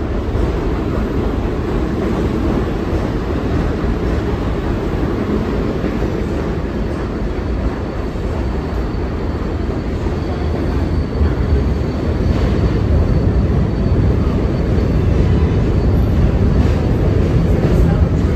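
R188 subway train cars running past along the platform: a steady, loud noise of wheels on rail that grows a little louder about two-thirds of the way through.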